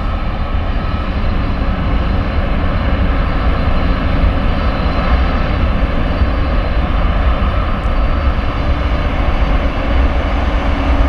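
Airbus A340-300's four CFM56 turbofan engines at take-off power: a loud, steady jet roar, heaviest in the bass.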